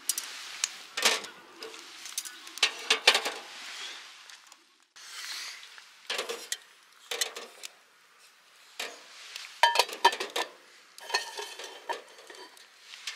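Metal camp stove and cookware being handled: irregular clinks and knocks with short gaps between them, and a few ringing metallic clinks about ten seconds in.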